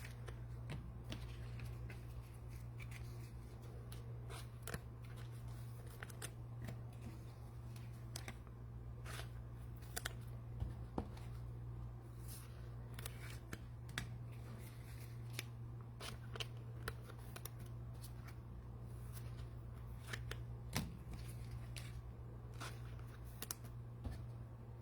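Trading cards being handled and sorted by hand: scattered soft clicks, slides and rustles of cards, irregular throughout, over a steady low hum.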